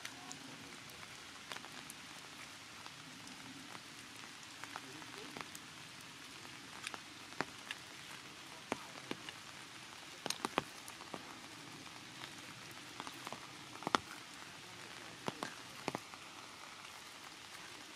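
Raindrops falling: a steady hiss with scattered sharp taps of single drops at irregular intervals.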